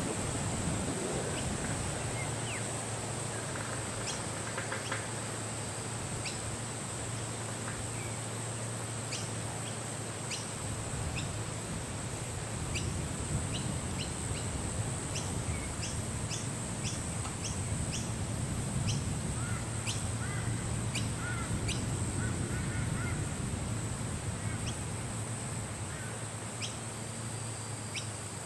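Wind blowing steadily with a low rumble, while birds give short, sharp chirps scattered throughout. Clusters of lower calls come twice, about four seconds in and again past the middle, over a steady high hiss.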